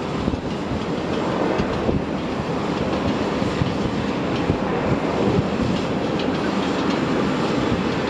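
Jet airliner's engines running at high power as it rolls along the runway: a loud, steady rumble.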